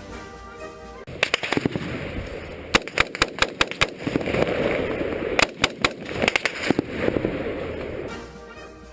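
Rapid volleys of sharp bangs and cracks in several bursts over about seven seconds, with background music underneath.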